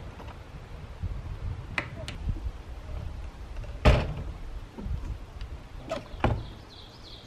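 A wooden screen door with a latch: a couple of latch clicks, then the door banging shut about four seconds in, followed by two lighter knocks about two seconds later.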